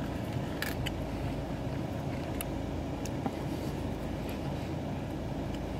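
Steady low background rumble of street traffic, with a few faint clicks.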